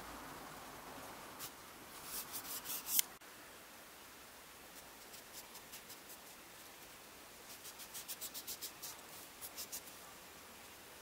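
Chrome sections of a telescopic monopod being pulled out: metal tube sliding against metal with rapid scraping clicks. The first section ends in one sharp click at its stop about three seconds in, and a second run of quick clicks comes near the end.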